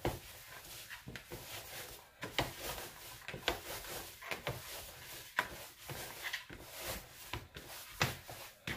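Sourdough dough being kneaded by hand in a plastic bowl: irregular soft knocks, slaps and rubbing, about one or two a second. The dough is sticky at this stage, with the salt and mashed potato not yet fully worked in.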